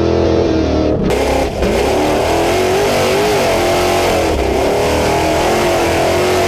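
Off-road trophy truck engine at racing speed, heard from onboard, its revs rising and falling over wind and rough-road noise. The sound changes abruptly about a second in, as the recording switches camera.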